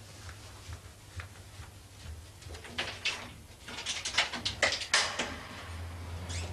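A run of sharp, irregular knocks and clicks, sparse at first and coming thick and fast about three to five seconds in, over a low steady hum.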